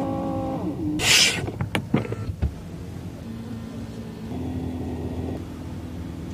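Electric seat motors in the rear seat of an Audi A8L humming steadily as the seat is power-adjusted into a reclined position, with a short hiss and a few clicks about a second in.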